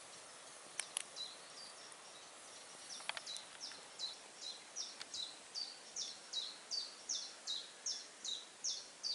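A small songbird singing a long run of short, high, repeated notes, about two to three a second, starting a few seconds in. A few faint clicks come before it.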